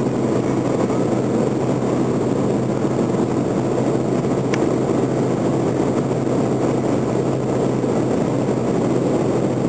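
BMW E90 3 Series at high motorway speed, heard from inside the cabin: a steady engine drone under heavy wind and tyre noise. One faint click about four and a half seconds in.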